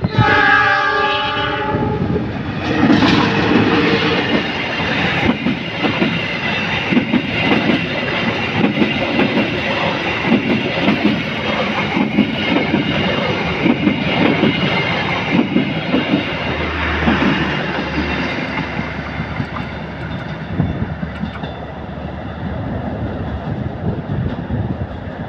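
Diesel locomotive sounding its multi-note horn in one blast of about two seconds as it approaches, then a passenger train passing close by with the clickety-clack of wheels over rail joints. The sound eases off near the end as the coaches move away.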